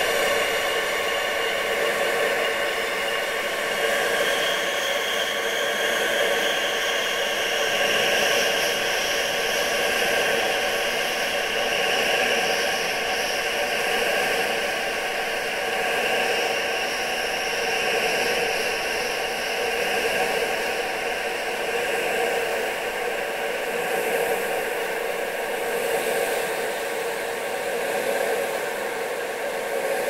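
Steady wind-like rushing hiss for tinnitus sound therapy, its noise gathered in several bands from low to high and swelling and easing gently without a break.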